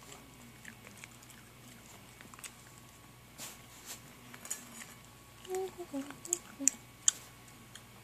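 Small dog eating dry kibble from a stainless steel bowl: scattered crunches and clicks of kibble against the metal, coming thicker and louder a little past halfway, then stopping about a second before the end.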